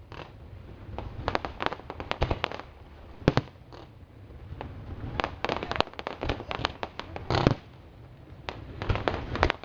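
Aerial fireworks display: shells bursting in quick clusters of sharp cracks and bangs. The densest crackling comes in the middle, with the loudest bang a little past two thirds of the way.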